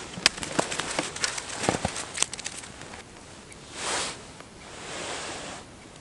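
Handling of a small ice-fishing rod and tackle at the ice hole: a quick run of light clicks and taps for the first two seconds or so, then two short soft rustles.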